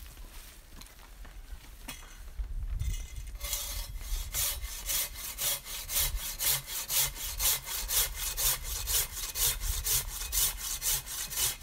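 Folding hand saw cutting through wood in a steady run of back-and-forth strokes, about three a second, starting a few seconds in after some quiet rustling.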